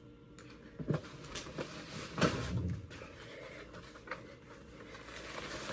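Packaging and parts being handled: scattered light rustles and clicks, with a louder rustle about two seconds in.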